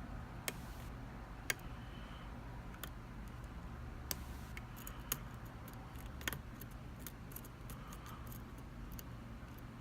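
Lock pick working the pin stack of an Abus E90 euro cylinder that is held in a false set under tension: scattered light metallic clicks and ticks, the sharpest about a second and a half in. A quicker run of small clicks comes in the second half, over a steady low background hum.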